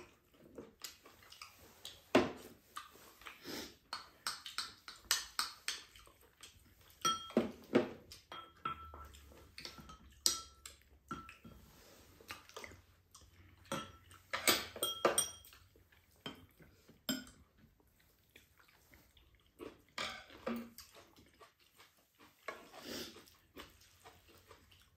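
Spoons clinking and scraping against ceramic bowls and a frying pan during a meal: scattered short knocks, some with a brief ringing clink.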